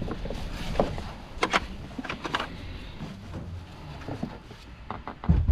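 A few sharp clicks and knocks of parts and tools being handled while a car's engine bay is reassembled, over a low steady hum; the loudest knock comes near the end.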